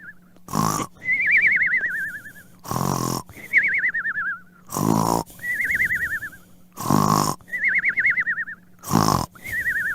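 Cartoon snoring sound effect looping about every two seconds: a short harsh snort, then a wavering whistle that falls in pitch.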